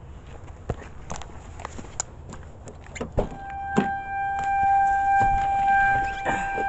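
Scattered light knocks and steps, then a thump a little over three seconds in, followed by a steady, high electronic warning tone from a 1994 Lexus ES 300, the kind a car sounds with a door open and the key in the ignition.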